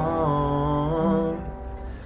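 Acoustic guitar with a man singing, holding the last word of a line over a ringing chord that fades about a second and a half in.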